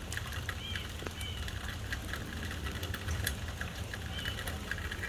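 Rain pattering, with many small scattered drip ticks and a steady low rumble underneath. A few short bird chirps come through, about half a second in, at a second and a bit, and again near the end.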